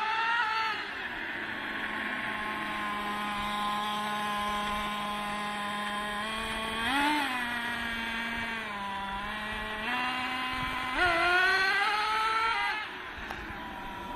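Traxxas T-Maxx's two-stroke .21 nitro engine running. It falls off from high revs at the start and holds a steady low speed. It revs briefly about seven seconds in, then climbs in a longer rising rev about eleven seconds in that drops back near the end.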